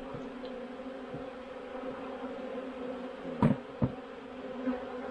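Honeybees in a robbing frenzy: a steady, dense buzz of many wings from robber bees swarming an open hive. Two short thumps sound a little after three seconds in.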